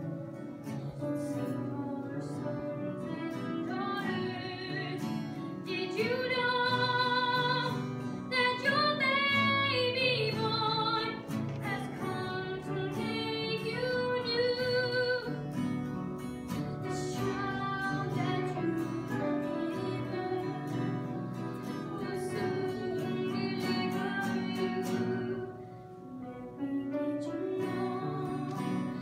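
A young woman singing a Christmas hymn with instrumental accompaniment, holding long notes. It dips briefly near the end.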